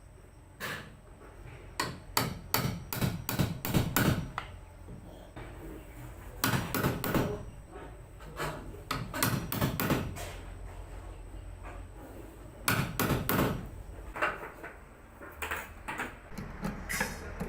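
Hammer knocks in several short runs of quick blows, with pauses between them, as a door is fitted and hung.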